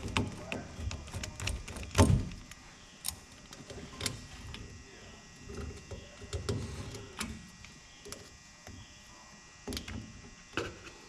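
Hand work with a screwdriver on the furnace's wiring parts: scattered clicks, taps and knocks of the tool and metal parts being handled, with one louder knock about two seconds in.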